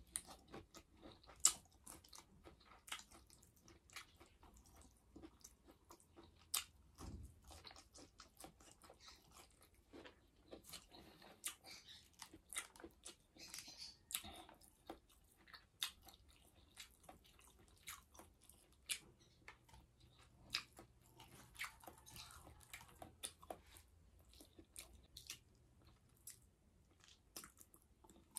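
Quiet eating sounds: a person chewing fried tilapia and vegetables, with many short irregular clicks.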